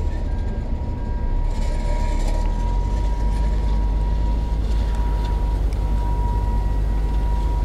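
Heavy diesel machinery running steadily with a deep, even rumble and a thin steady whine above it, growing a little louder about two seconds in.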